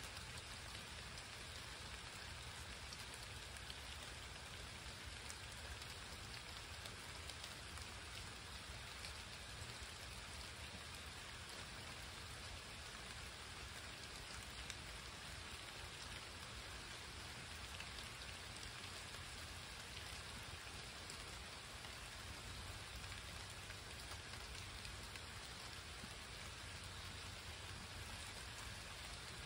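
Rain shower falling steadily on trees and pavement: an even soft hiss with scattered ticks of individual drops.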